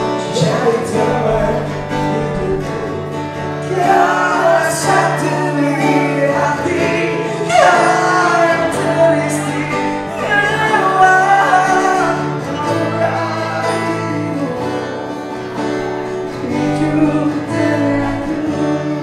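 Live acoustic music: male voices singing into microphones over an acoustic guitar, amplified through a PA speaker.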